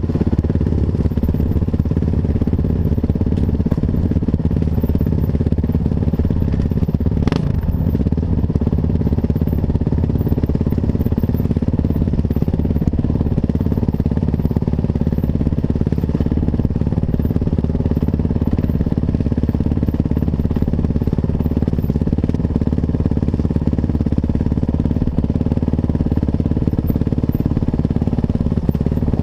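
Kawasaki KX450F single-cylinder four-stroke dirt bike engine running steadily under way, heard from a helmet-mounted camera, with a single sharp knock about seven seconds in.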